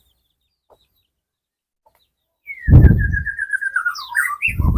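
A songbird, most likely a white-rumped shama (murai batu), calls about halfway through: a rapid pulsing note that slides slowly down in pitch, followed by a few more chirps near the end. Heavy low thuds come with the start of the call and again near the end.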